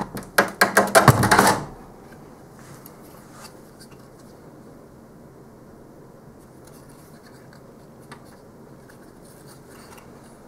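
A quick run of loud clicks and scrapes for under two seconds as a circuit board is worked loose from a network switch's sheet-metal chassis, then faint handling noise with a few light clicks as the board is held and turned.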